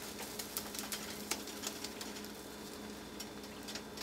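Oat-and-egg pancake batter sizzling and crackling in coconut oil in a hot nonstick frying pan, with a metal spoon patting the batter flat at first.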